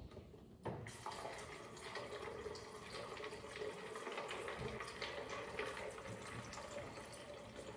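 Faint, steady stream of water running from a refrigerator's built-in water dispenser into a water bottle, starting about a second in.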